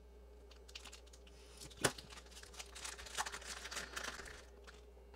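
A small white mailer bag being cut with a craft knife and pulled open by hand: faint crinkling and tearing of the bag, with one sharper click a little under two seconds in.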